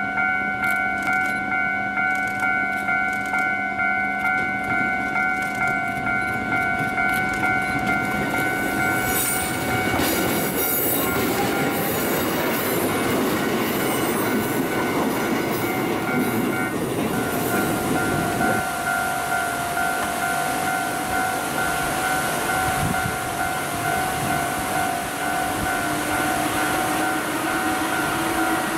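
Japanese level-crossing alarm ringing with a steady repeating electronic chime as a Kotoden vintage electric railcar (car 120) passes. The train's running noise swells from about eight seconds in and fades after about eighteen seconds, while the alarm keeps ringing.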